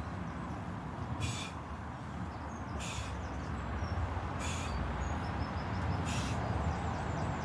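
Steady low outdoor rumble, like distant traffic, with a short high hiss about every one and a half seconds and faint high chirps.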